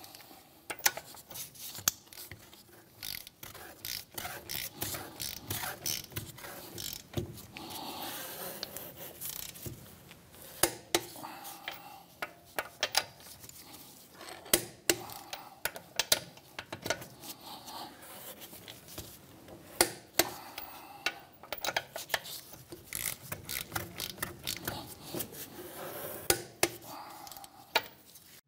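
Torque wrench with a 17 mm socket tightening wheel lug nuts to 73 ft-lb: the wrench ratchets between pulls, with sharp metallic clicks coming irregularly throughout.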